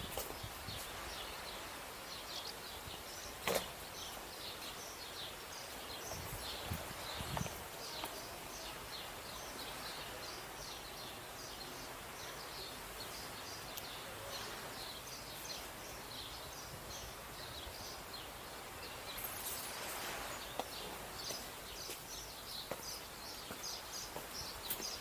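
Small birds chirping over and over above a steady outdoor hiss, with a sharp click about three and a half seconds in and a few soft footsteps a little later.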